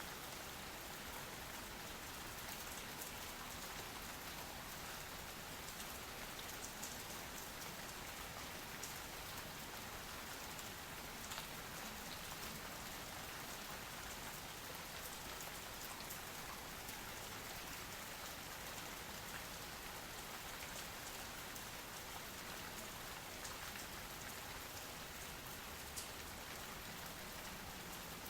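Steady rain falling, an even hiss with scattered individual drops ticking on hard surfaces.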